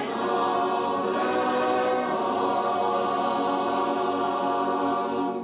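Mixed youth choir singing a cappella, holding one long sustained chord that is cut off together near the end.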